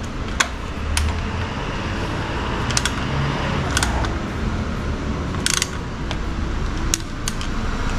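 Socket wrench clicking and clinking against metal as it is worked on the oil filter: about six separate sharp clicks, one a little longer and scraping near the middle, over a steady low hum.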